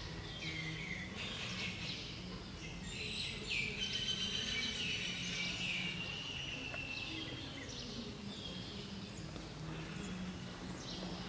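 Outdoor ambience of birds chirping and calling, with one longer whistled call about four to six seconds in, over a steady low hum.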